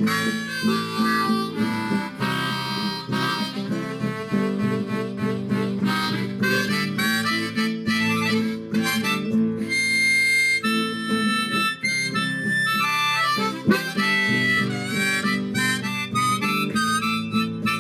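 Harmonica playing a melody over strummed acoustic guitar chords, with a long held harmonica note about halfway through.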